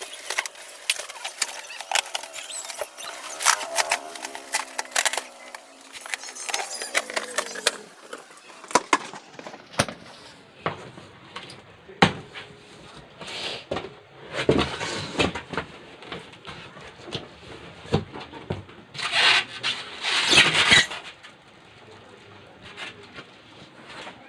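Packaging being handled during unpacking: plastic wrap and packing materials rustling and squeaking, with many sharp clicks and knocks. There is a louder stretch of rustling about 19 to 21 seconds in.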